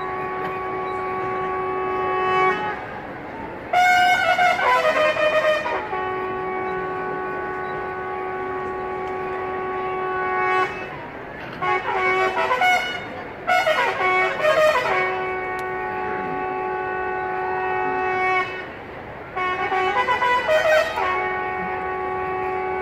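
Military bugle sounding a slow call as the flags are lowered: long held notes alternate with short runs of quicker notes, about every five seconds.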